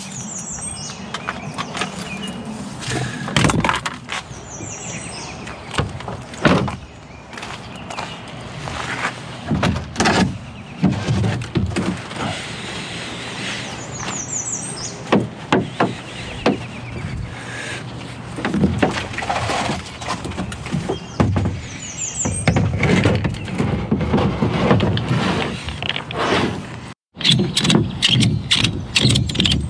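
Irregular knocks, bumps and scrapes of a kayak and paddle being handled as the boat is landed and hauled out.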